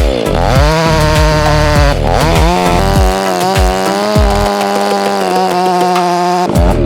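Gasoline chainsaw running at high revs while cutting through a log. Its engine pitch sags under load and climbs back several times, about two seconds apart.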